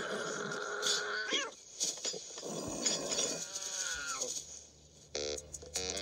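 Cartoon cat yowling: a long wavering cry, then shorter cries that fall in pitch.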